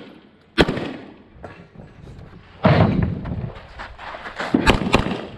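Handgun shots fired close to the microphone: a single shot about half a second in, a louder one with a long echoing tail near three seconds, then a quick string of three or four shots near the end. The pistol is a standard-division handgun loaded to major power factor.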